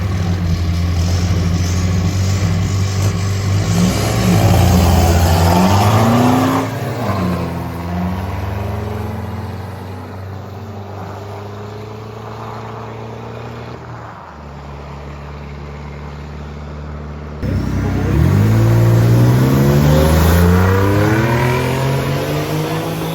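Engines of 4x4 mud drag vehicles revving hard on their runs. The pitch climbs in steps through the gears in two loud bursts, about four seconds in and again near eighteen seconds, with a steadier, quieter engine drone between them.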